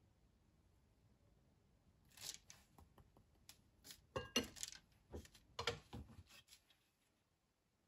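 Light kitchen clatter: a metal spoon clinking as it is set down in a ceramic bowl, among a scatter of small clicks and knocks over about four seconds, loudest in the middle.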